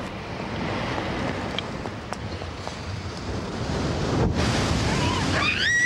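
Steady rushing noise of wind and sea surf. The sound drops out briefly about four seconds in, and near the end a high whistling call rises and then holds.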